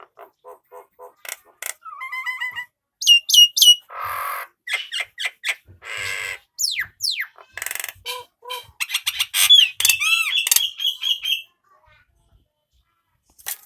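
Male jalak nias (Nias myna) calling in a varied string: quick clicking notes, loud whistles that slur downward, harsh rasping calls and a rapid run of arched notes, falling silent about 11 seconds in.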